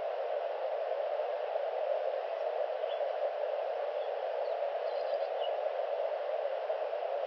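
Steady hiss of static from the nest webcam's microphone, with a few faint high chirps in the middle.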